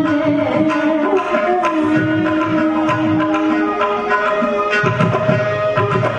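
Carnatic music accompanying a Bharatanatyam dance: repeated hand-drum strokes under long held melodic notes.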